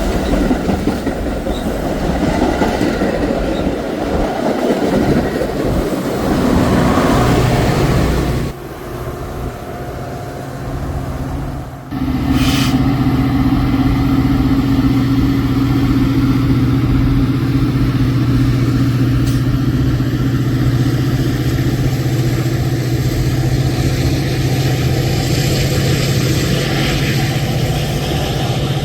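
Metra commuter train at the station: rumble and clatter of the train on the rails, then, after an abrupt break about a third of the way in, a steady low diesel locomotive drone.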